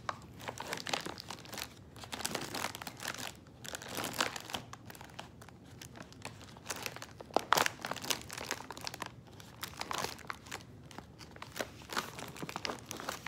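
Plastic and paper wrapping of a sterile dressing-change kit crinkling and rustling as it is opened by hand, in irregular crackles with a sharper one about halfway through.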